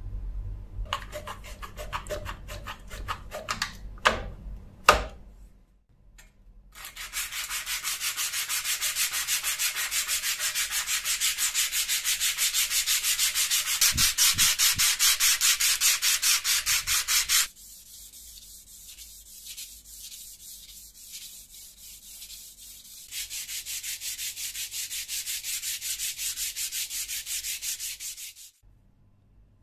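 Sandpaper rubbed by hand along a steel knife blade in rapid back-and-forth strokes, dropping to a softer stretch in the middle before picking up again. Two sharp knocks about four and five seconds in.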